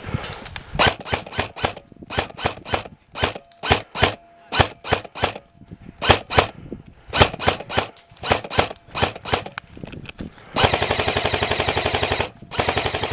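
Airsoft rifle firing a string of rapid single shots, then a long full-auto burst about ten and a half seconds in and another burst near the end.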